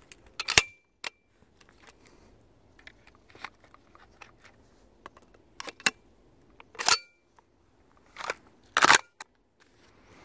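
Typhoon F12 semi-automatic 12-gauge shotgun firing about six shots, spread over the stretch with a gap in the middle, with fainter handling clicks between them. Several shots are followed by a brief high metallic ring from steel plate targets being hit.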